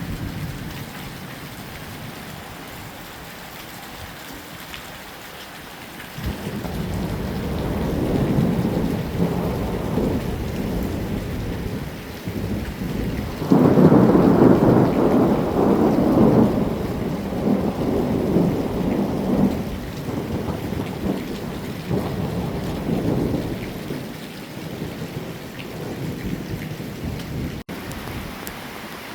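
Heavy rain falling steadily, with a long roll of thunder that comes in about six seconds in, swells to its loudest near the middle and rumbles on, fading away over about ten seconds.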